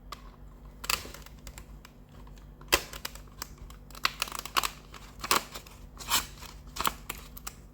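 Scattered sharp clicks and light rattling of wire cutters snipping thin twisted tie wire and of hard plastic packaging being handled as a diecast model is worked loose, the sharpest click coming a little under three seconds in.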